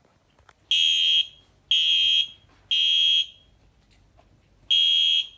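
Wheelock MIZ fire alarm horn sounding in the temporal-three evacuation pattern after a pull station was pulled: three short, high-pitched blasts about a second apart, a pause, then the next round beginning near the end.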